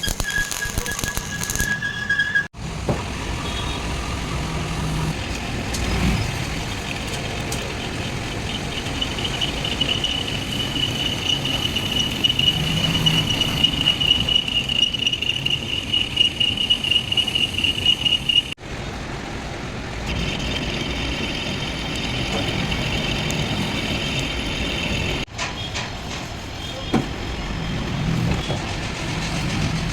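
Metalworking machinery running with a steady mechanical din and low hum; in the middle stretch a steady high-pitched squeal sits on top for several seconds. The sound breaks off abruptly and restarts three times.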